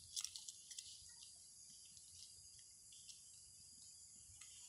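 Faint, steady, high-pitched chorus of insects such as crickets, with a few short clicks and rustles near the start.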